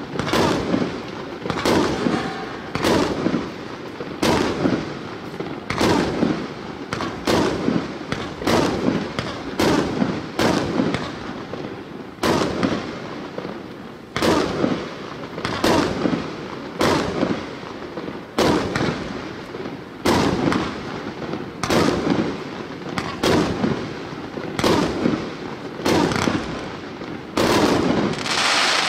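A 1.2-inch 25-shot fireworks cake firing: a steady series of sharp shots and bursting reports, roughly one a second. Near the end a longer, hissing crackle rises above the shots.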